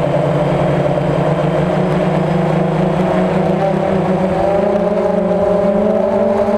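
DJI Phantom quadcopter's electric motors and propellers running in flight, a steady multi-tone hum picked up by the camera mounted on the drone. Several of the tones drift slightly up in pitch about four seconds in as the motor speeds change.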